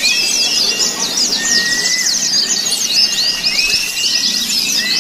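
Many white-eyes (pleci) singing at once in a dense chorus of rapid, high, overlapping chirps and trills, with a few longer whistled notes that rise and then hold.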